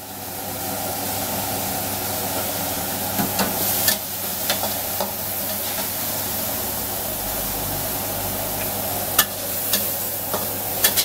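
Pork and bell peppers sizzling in a hot wok on a gas burner, a steady frying hiss, while a metal spatula stirs the pan with a few sharp clinks and scrapes against the wok.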